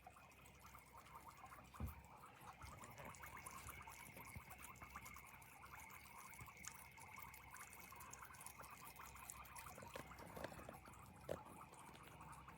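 Near silence, with faint trickling and dripping water and tiny scattered ticks.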